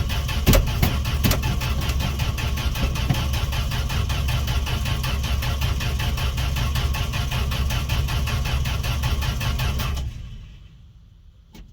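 1968 Fargo D100 pickup engine being cranked over by its starter in a steady rhythm for about ten seconds without catching, then the cranking stops; a single click follows near the end. It is a no-start, which the owner suspects is from a lack of spark.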